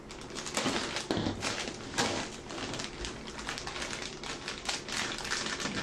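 Clear plastic bag of paintballs being handled and opened by hand: irregular crinkling and crackling of the plastic with small clicks, the sharpest about two seconds in.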